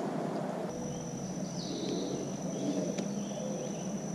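Insects making a steady high-pitched drone over outdoor background hiss. The drone breaks off briefly near the start, then resumes.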